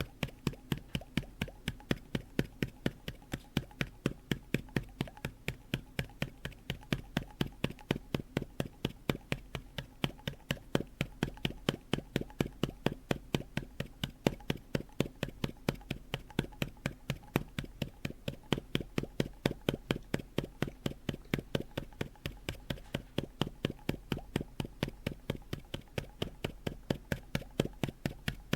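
Open mouth of a plastic pot bopped against an open palm over and over, giving a hollow pop each time, at a steady three to four pops a second.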